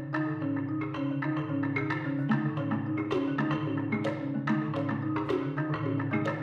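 Percussion ensemble playing marimbas and other mallet keyboards in contemporary concert music: low held notes moving in steps beneath many sharp, quick strikes higher up.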